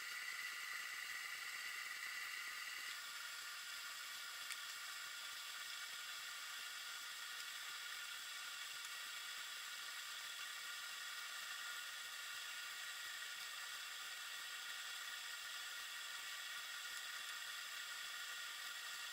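Faint, steady underwater hiss picked up by a submerged fishing camera, with a few constant high-pitched tones running through it; it drops slightly in level about three seconds in.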